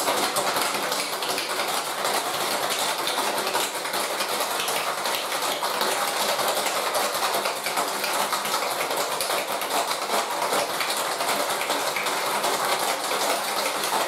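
Ice cubes rattling inside a stainless steel cocktail shaker being shaken hard, a rapid, even clatter of ice against metal. The shaker is packed to the top with ice for chilling the drink.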